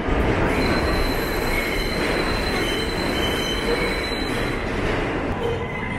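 New York City subway train pulling into the station: a steady rumble of wheels on the rails, with a thin, high wheel squeal from about half a second in to about four seconds.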